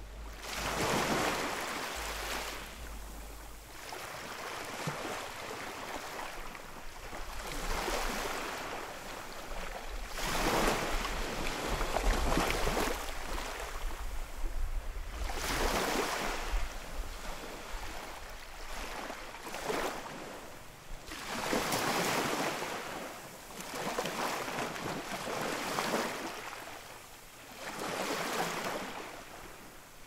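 Ocean waves breaking on a shore, each wave a swell of surf noise that rises and washes out, coming every few seconds.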